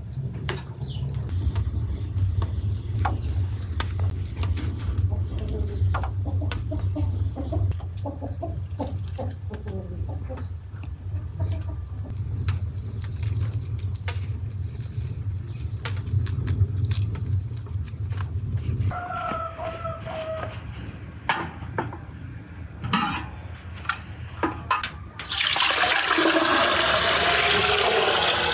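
Chickens clucking over a low steady hum and scattered light clicks, with a short crowing call about two-thirds of the way through. Near the end, water starts running loudly and becomes the loudest sound.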